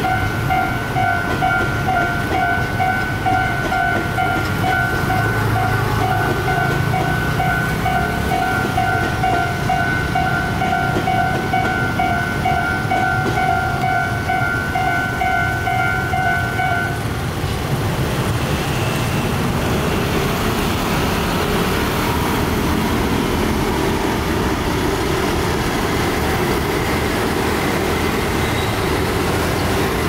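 Railway level-crossing warning bell ringing in a rapid, steady repeated ding while a passenger train runs past over the crossing. The bell stops a little past halfway through, and the engines of scooters and cars crossing the reopened road take over.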